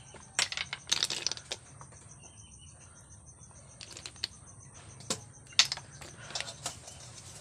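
Light metallic clinks and knocks from a steel bowl and pot lid being handled at a stove, coming in short clusters, over a steady pulsing chirr of crickets.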